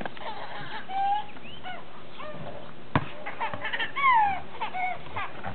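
A baby girl laughing in a string of high-pitched squeals that slide up and down, the loudest a long falling squeal about four seconds in. A single sharp thump of a basketball bouncing on the pavement comes about three seconds in.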